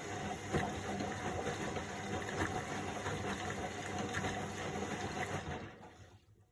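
Washing machine running: a steady motor hum under water sloshing, with scattered small knocks, fading out about six seconds in.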